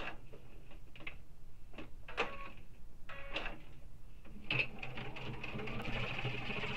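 Sewing machine topstitching at a long stitch length. It starts slowly, with separate clicks of the needle, then runs faster and more steadily from about four and a half seconds in.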